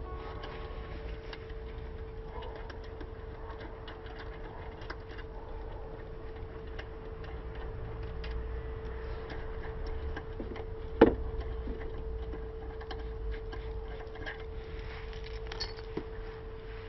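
Light metallic clicks and clinks of tools and parts being handled, with one sharp knock about eleven seconds in, over a steady hum.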